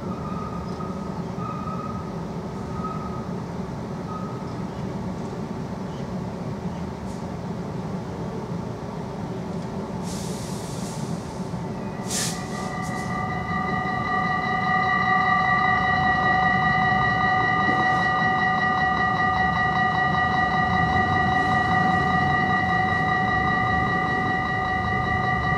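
Dutch level-crossing warning bells start up about halfway through with a click, then ring rapidly and without a break, as the red lights flash and the barriers lower for an approaching tram. Before that there is only a steady low rumble.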